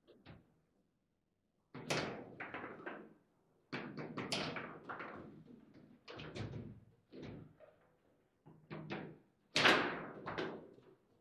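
Table football in play: quick runs of hard plastic clacks and knocks from the ball, figures and rods, with silent gaps between the runs. The hardest knocks come about two seconds in and again near the end.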